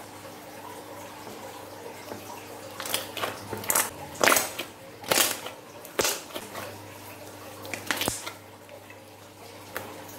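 Thick slime being squeezed and pressed by hands in a glass dish, making a run of irregular wet squishing sounds that start about three seconds in and die down near the end.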